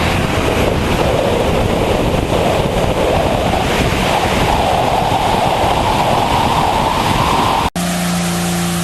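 Diesel pickup truck at full throttle: a loud rushing roar with an engine note that climbs steadily in pitch. Near the end it cuts off abruptly and a steadier, lower hum takes over.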